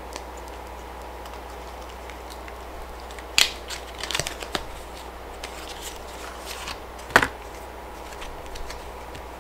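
A new pack of playing cards being unwrapped and its small card box opened by hand: scattered crinkles and crackles, the two sharpest about three and a half and seven seconds in.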